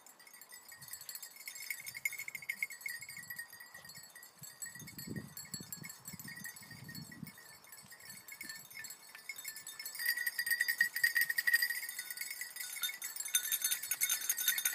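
Small bells on basset griffon vendéen hounds' collars jingling as the dogs cast about the field searching for scent, louder from about ten seconds in.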